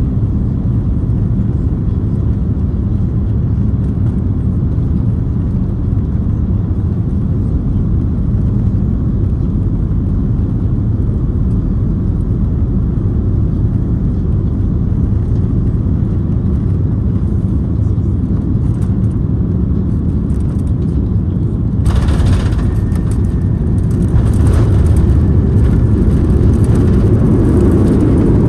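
Cabin noise of an Airbus A340-300 on final approach: the steady low rumble of its four CFM56 engines and the airflow. About three-quarters of the way in, a sudden louder, hissier roar sets in and builds again a couple of seconds later, as the wheels touch down and the spoilers and reverse thrust come in.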